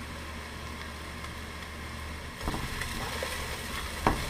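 Carrots, onions and celery sautéing in butter and olive oil in a pot over a steady low hum; from about halfway a plastic spatula stirs the vegetables, with a few sharp knocks against the pot.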